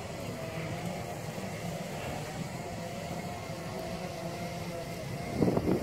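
Segway's electric drive humming steadily with a faint whine as it rolls along a dirt track, with a louder burst of rumbling noise about five seconds in.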